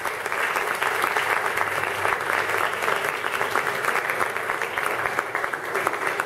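An audience clapping, a dense patter of applause in a classroom.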